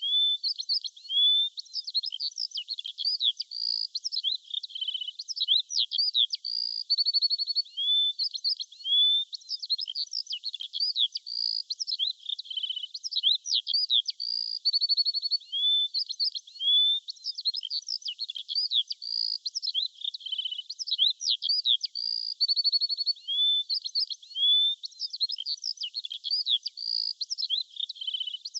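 Songbirds chirping and calling without a break: many short high-pitched chirps, whistled notes and quick trills overlapping, with no low sounds under them.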